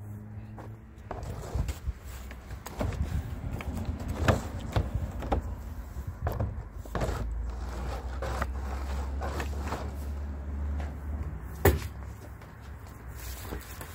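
Stain roller on an extension pole and footsteps working over wooden porch decking: scattered knocks and scuffs, the loudest a sharp knock near the end.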